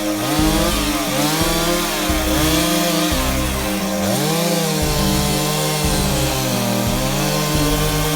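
Two-stroke chainsaw running at high revs while cutting wood. Its pitch dips and recovers several times as the chain bites in under load.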